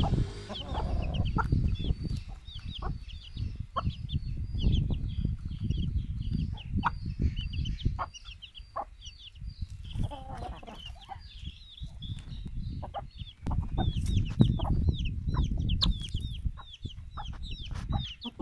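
Chicks peeping: a steady run of quick, high-pitched cheeps that thins out in the middle. A few lower clucks come from the adult hen or rooster about ten seconds in.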